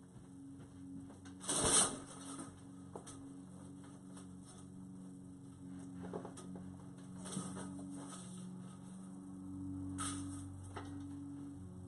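A bee buzzing as a low, steady hum that swells and fades, with a brief louder rustle or thump a little under two seconds in and a few soft knocks.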